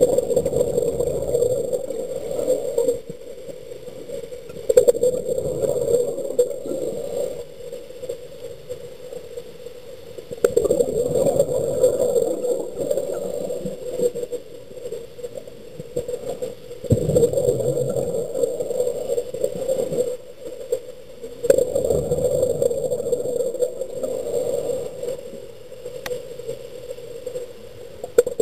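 Muffled rushing through an underwater camera housing, swelling and fading in long surges every five or six seconds, like a diver breathing on a closed-circuit rebreather.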